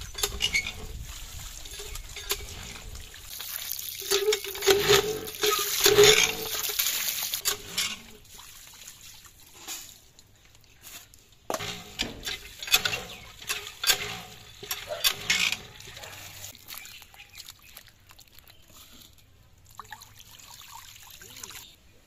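Water from a cast-iron hand pump splashing and trickling into a steel bowl as sliced vegetables are rinsed, with a run of sharp knocks partway through.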